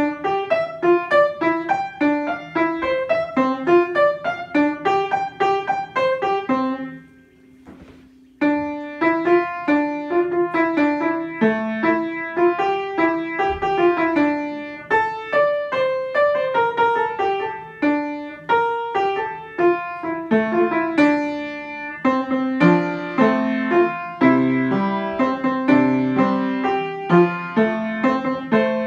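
Upright piano played solo, a steady run of single notes and chords. The playing breaks off for about a second and a half around seven seconds in, then carries on.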